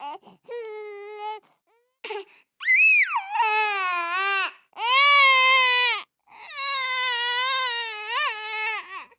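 Baby crying in a series of wails, with short catches of breath between them; one wail partway through starts with a sharp rise and fall in pitch, and the last is the longest.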